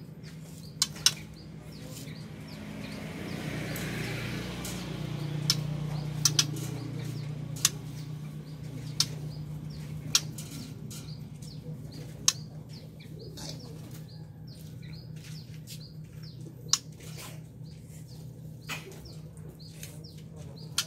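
White-rumped shama moving about its wire cage: scattered sharp clicks and wing flutters. A low hum swells and fades between about three and nine seconds in.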